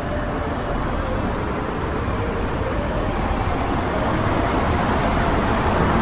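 Steady noise of street traffic, growing slowly louder toward the end.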